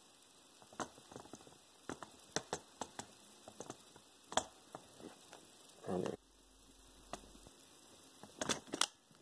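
Scattered light clicks and taps from handling a 2-in-1 tablet and its keyboard dock, with a louder brief rustle about six seconds in and a quick run of clicks near the end.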